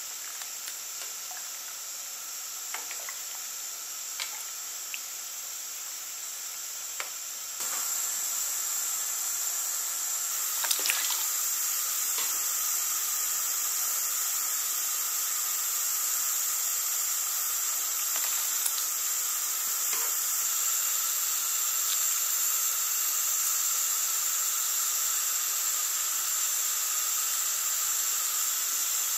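Steady hiss from shrimp being cooked and handled in water, with a few light clicks and splashes in the first seconds. The hiss gets louder after a cut about eight seconds in.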